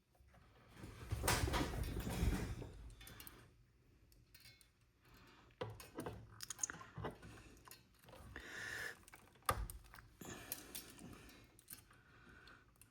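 Hands working wires and small tools inside an amplifier chassis: a stretch of rustling handling noise, then scattered clicks and taps.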